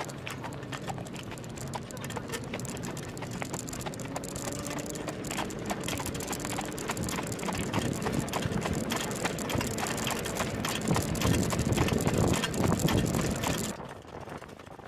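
Standardbred harness horse's hooves beating on the dirt track, with the sulky's frame and wheels rattling close by. The sound grows louder, then drops off sharply near the end.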